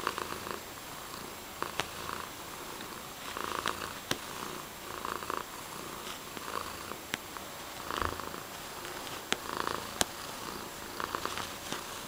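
Tabby cat purring steadily close up, the purr swelling and easing with each breath about every second and a half. A few sharp clicks cut in, the loudest near the end.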